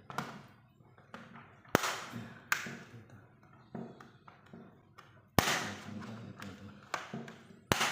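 Plastic casing of an Asus X450C laptop being pried apart, giving several sharp snaps as it comes loose at irregular intervals, with smaller ticks and scraping between them.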